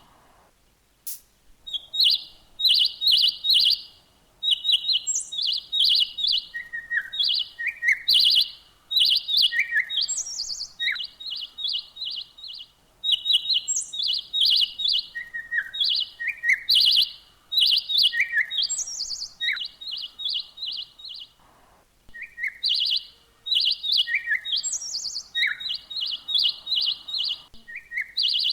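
A small songbird singing: phrases of rapid, repeated high chirps, mixed with an occasional lower falling note and a few higher ones, broken by short pauses.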